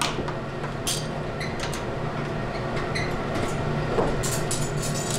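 Scattered light metallic clinks and clicks of hand tools being handled at an engine bay, over a steady low hum.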